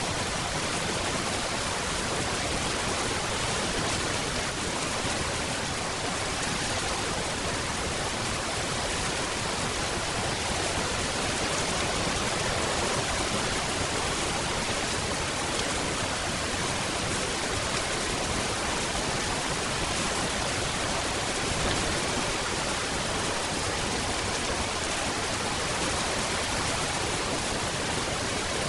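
Steady, dense rainfall: an even hiss of rain with no distinct drops or breaks.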